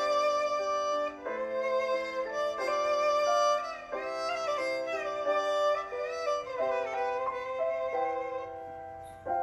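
Background music: a violin melody with sustained, wavering notes over a held accompaniment.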